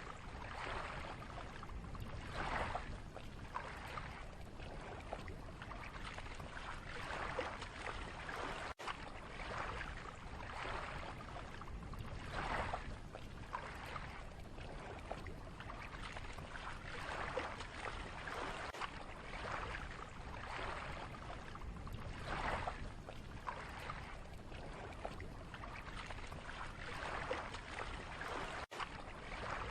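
Lake water lapping in small waves, a soft splash swelling every second or two.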